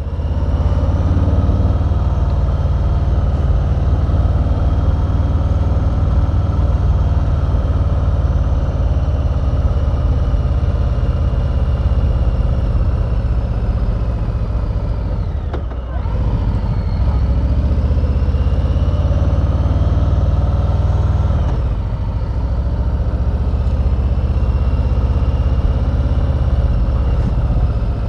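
Harley-Davidson Street Bob's V-twin engine running on the move. About halfway through its pitch drops sharply and briefly, then climbs steadily for several seconds as it accelerates, and steps down again, as at a gear change.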